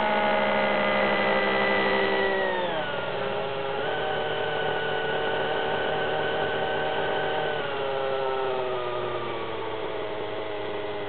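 Align T-Rex 600 Nitro Super Pro helicopter's glow engine running on the ground during its break-in run, with the rotor spinning. The engine note drops sharply about two and a half seconds in, holds steady, drops again about eight seconds in, then sinks slowly as the engine is throttled back toward idle and the rotor slows.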